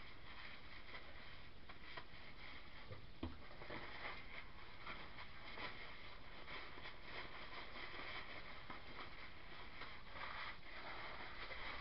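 Soft brushing and scraping with scattered light taps as a brush dusts powder over the top of a loaf of soap in a wooden mold, over a steady hiss.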